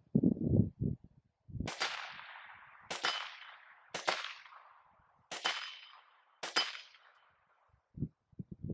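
Five rifle shots from a Daniel Defense Mark 18 AR-15, each a sharp crack followed by a rolling echo that fades over about a second. They are spaced about one to one and a half seconds apart. A thumping music beat ends about a second before the first shot.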